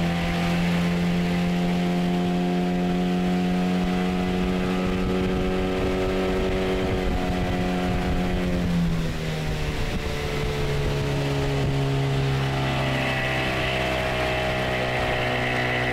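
Yamaha 9.9-horsepower outboard motor running steadily, then throttled back about nine seconds in, its pitch dropping and settling lower.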